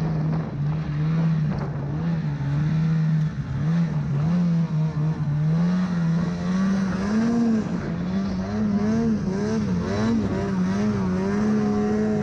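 Snowmobile engine running under throttle through deep powder snow, its pitch rising and dipping again and again as the throttle is worked, then holding a little higher near the end.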